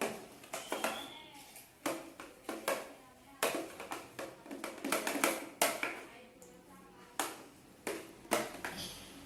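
A run of irregular sharp taps and knocks, one or two a second, from objects being handled on a hard surface.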